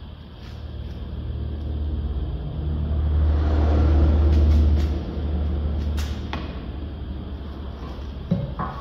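A low mechanical rumble swells over a few seconds and then eases off, with a sharp click about six seconds in and a knock near the end.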